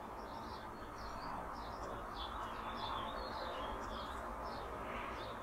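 Small birds chirping faintly in a quick, uneven series of short high chirps, over a low steady room hum.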